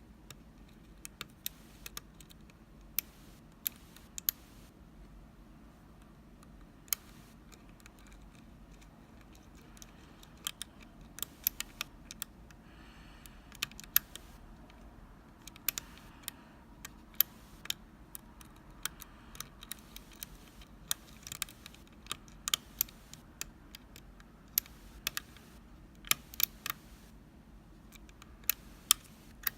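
Small sharp metal clicks from a lock pick working the pin stacks of an Assa Abloy FAB euro cylinder, coming irregularly, sometimes several in quick succession.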